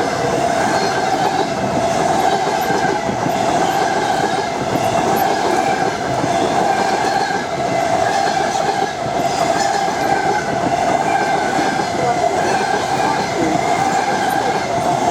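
Passenger coaches of a train rolling past, their wheels clattering on the rails with an unusual knock, under a steady ringing tone from the wheels and running gear.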